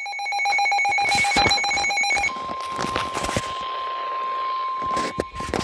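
Emergency Alert System alert tones for a marine warning, received over AM radio. A pulsing tone with several pitches switches about two seconds in to one long steady alert tone, with several short bursts of noise over it.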